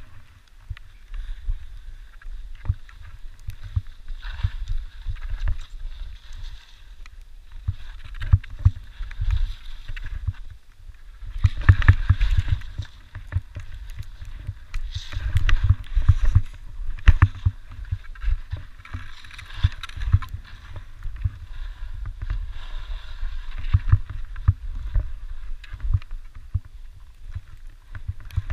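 Skis sliding and scraping over snow, the hiss swelling and fading turn by turn, over a steady low rumble of wind buffeting the helmet camera's microphone, with frequent sharp knocks from bumps.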